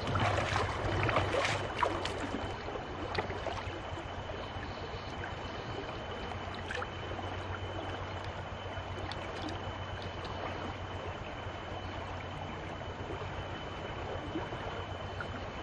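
Shallow creek water splashing as someone wades through it for about the first two seconds, then the steady rush of flowing stream water.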